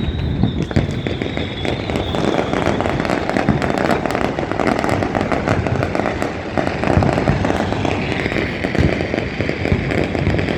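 Many New Year fireworks going off across a city at once: a dense, continuous crackle of bangs and pops, with a thin high whistle through the first few seconds.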